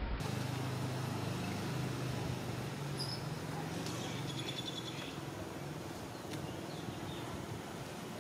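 Outdoor background noise: a steady hiss with a low hum, and a faint rapid chirping trill from about three to five seconds in.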